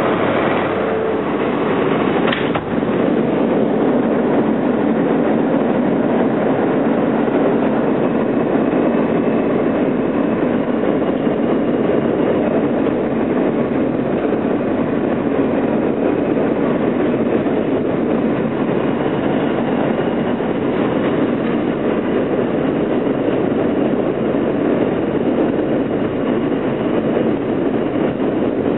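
Alstom R160A-2 subway car running slowly along elevated track, heard from inside: a steady rumble of wheels on rail with a faint motor whine. There is a single knock about two and a half seconds in.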